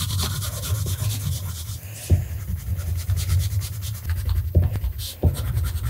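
A wax crayon scribbling on paper, colouring in with quick, steady back-and-forth strokes.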